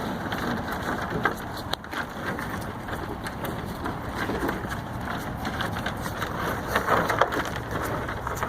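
Cows crunching and chewing kettle corn, a dense run of crackly, crunchy clicks.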